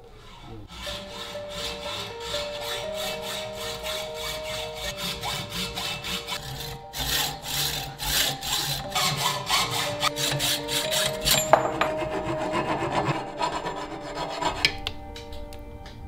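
Hacksaw cutting through a bicycle fork's metal steerer tube held in a saw guide, in quick repeated back-and-forth strokes that stop near the end.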